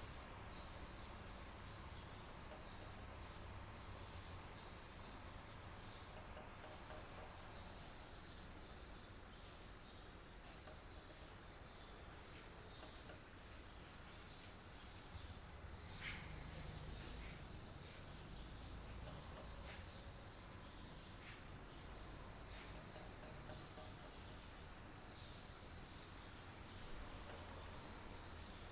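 Electric fan running steadily: a low motor hum and an even rush of air, with a continuous high-pitched tone over it.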